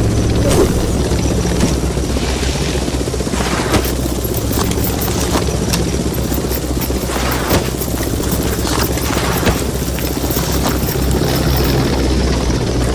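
A steady, loud, low mechanical drone, like an engine or rotor, with a hiss on top and scattered sharp clicks and knocks.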